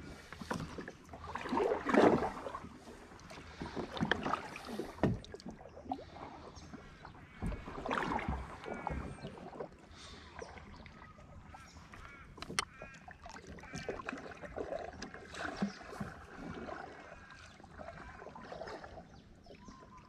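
Kayak paddle strokes dipping into calm water, splashing and dripping at irregular intervals, loudest about two seconds in, with birds calling in the background.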